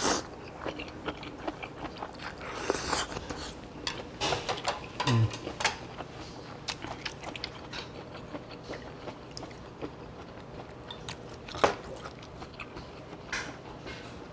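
Close-up eating sounds: a slurp of noodles and broth about three seconds in, then chewing with small clicks of chopsticks and tableware. A sharp clink comes about two-thirds of the way through.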